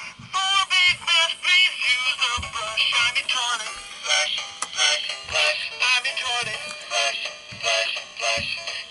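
Music with a high, synthetic-sounding singing voice that sounds thin, with almost no bass.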